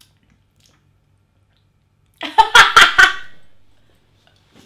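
A woman's short, loud burst of laughter, four or five quick "ha"s about two seconds in, trailing off after a second.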